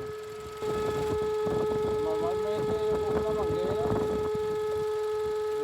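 Range Rover engine running with a loud, steady hooting whistle over it, which steps up in level about half a second in. It is the noise that sounds like a vacuum leak.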